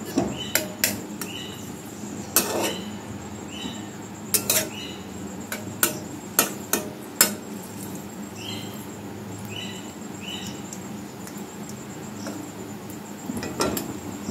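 A metal spatula stirring chopped garlic in oil in a metal kadai, knocking and scraping against the pan in a series of sharp clinks, mostly in the first half and again near the end. Short, high chirps repeat steadily in the background.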